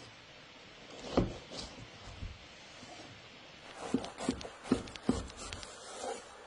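Knife cutting through a crusty toasted sandwich roll on a wooden board: a single knock about a second in, then a quick run of short crunching strokes in the second half as the blade saws through the crust.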